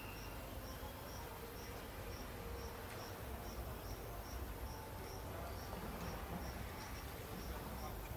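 An insect chirping in a steady rhythm, about three short high chirps a second, over a steady background hiss.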